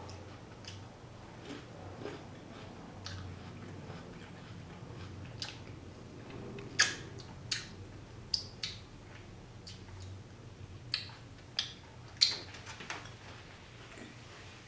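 A person chewing and eating raw jicama fries, with a string of short, sharp wet mouth clicks and smacks in the second half as she licks her fingers.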